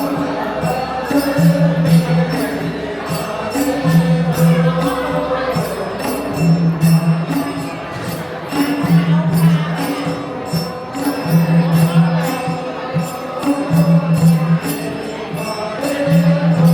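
Traditional Gurung dance music: voices singing a chant-like song over a percussion beat, with a low note repeating about every second and a steady jingling rhythm on top.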